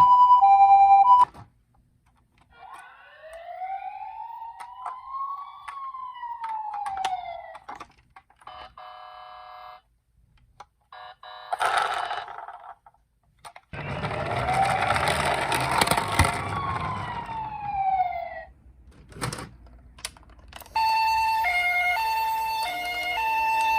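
Toy ambulance minicars sounding their electronic sirens one after another. A hi-lo two-tone siren cuts off just after the start, then wailing sirens slowly rise and fall in pitch, one with a stretch of noise under it. Near the end another siren steadily alternates between notes.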